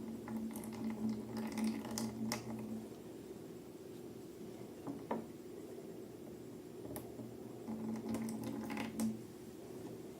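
Slime being squished and handled: soft wet squishing with scattered crackles and clicks, busiest in the first few seconds and again near the end. A steady low hum sounds during those same two stretches.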